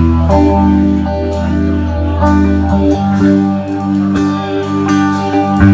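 Band music: electric guitar over a steady bass line.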